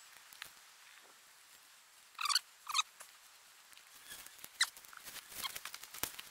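Two short, high, squeaky calls about half a second apart. From a little past the middle, crackling and rustling of dry leaf litter and twigs as a person shifts and gets up on the forest floor.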